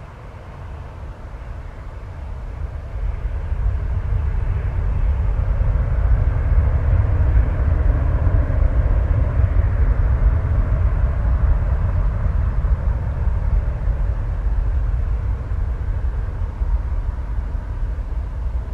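Boeing 737's twin jet engines spooling up to takeoff power as it starts its takeoff roll: a deep, loud rumble that builds over the first few seconds, then holds steady as the jet rolls away down the runway.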